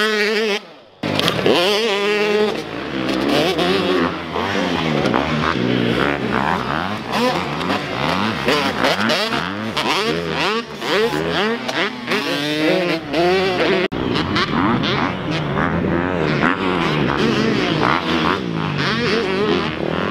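Super Mini dirt bike engine revving hard and easing off over and over, its pitch climbing and dropping every second or so as the bike is ridden through jumps. The sound drops out briefly about a second in.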